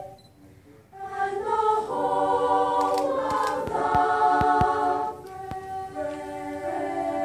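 Choir of girls singing a cappella in close harmony. A held chord breaks off into a second's pause, then the voices come back in and build into full sustained chords, with a few soft knocks about midway.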